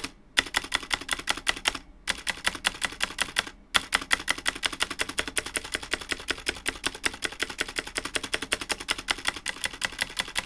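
Razer BlackWidow V3 TKL mechanical keyboard with Razer Green clicky switches typed on in a rapid run of keystrokes on its stabilized keys, with two brief pauses in the first few seconds. The sharp switch clicks mix with the metal wire rattle of its unlubricated stabilizers.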